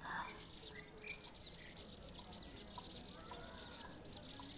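A small bird singing a long run of rapid, high, down-slurred notes. Behind it is a steady high-pitched insect drone.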